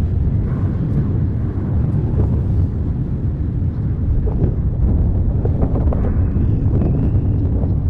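Mount Etna's lava fountain during a paroxysmal eruption: a continuous loud low rumble with a few faint short pops scattered through it.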